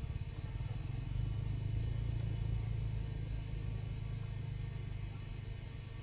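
A low engine hum that swells about a second in, then slowly fades.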